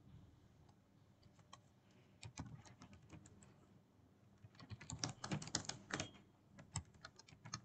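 Faint computer keyboard typing: scattered keystrokes at first, then a quick dense run of keys a little past the middle.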